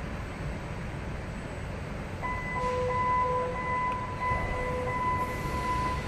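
Nuremberg G1 U-Bahn train car running and coming into a station, with a steady low rumble. About two seconds in, a steady high tone starts, with a lower tone pulsing on and off in a slow even rhythm under it.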